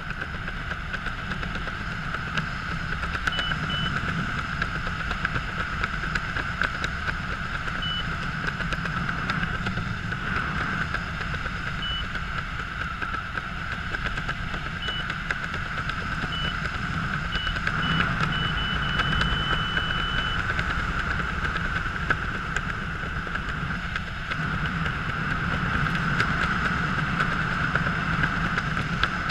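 Steady wind rushing over a helmet-mounted camera during descent under a reserve parachute canopy, with a constant hum in it. A few short high beeps come through in the first two-thirds, the last one a little longer.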